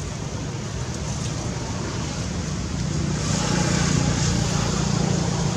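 A motor vehicle running steadily, growing louder about three seconds in.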